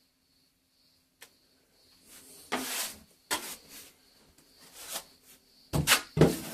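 A series of scraping, rubbing strokes, with a single click about a second in; the strokes come quicker and louder near the end.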